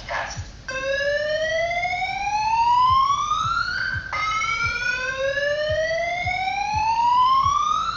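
Siren wail rising steadily in pitch twice, each rise lasting about three and a half seconds and dropping back abruptly before the next begins.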